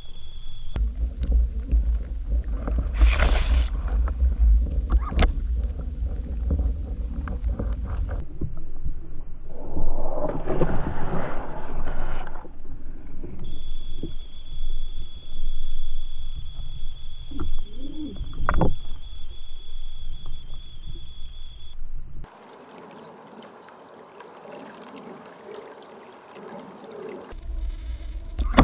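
Underwater sound picked up by a camera in a waterproof housing: a deep rumble and swishing water noise with scattered clicks and knocks. It comes in several pieces that start and stop abruptly, and goes quieter for a few seconds near the end.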